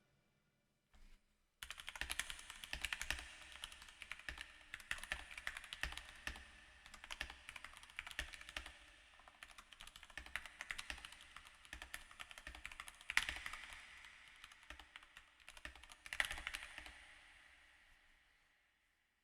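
Keyboard being typed on: quick, irregular key clicks in bursts, fairly faint, starting about a second and a half in and stopping a couple of seconds before the end, with a louder flurry twice in the later part.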